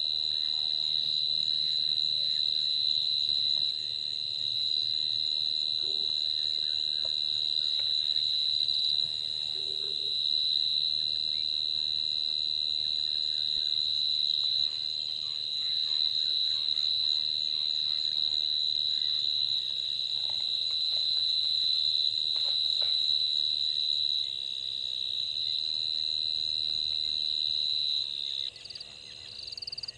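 Dense, steady, high-pitched insect chorus of the African bush at dusk, a continuous shrill drone. Near the end it falters and breaks up.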